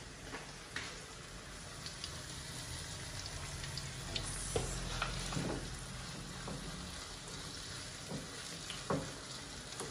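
Onions, tomatoes and chickpeas sizzling in a frying pan over a gas flame, with a steady hiss and short clicks and scrapes of a spoon against the pan now and then.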